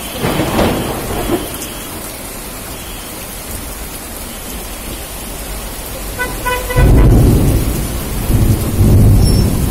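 Heavy rain hissing steadily on a flooded street. About six seconds in a short pulsed horn beeps, and loud low rumbles come near the start and again through the last three seconds.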